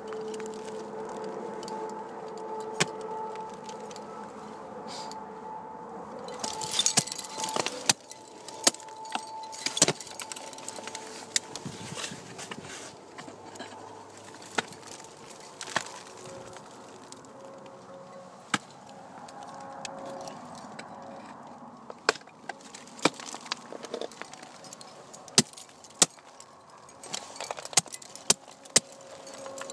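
Ice-climbing hardware clinking and jangling on a harness (carabiners and ice screws), with irregular sharp strikes of ice-axe picks and steel crampon points kicking into ice.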